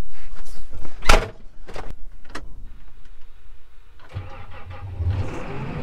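A 2012 Case IH Magnum 340 tractor's diesel engine being started from the cab. There is a loud knock about a second in and a couple of clicks, then about four seconds in the engine starts and runs low and steady.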